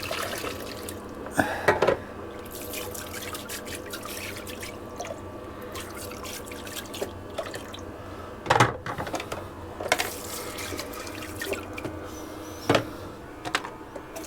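Water running and dripping in a sink while dishes are rinsed by hand, with a few sharp knocks of dishware against the sink.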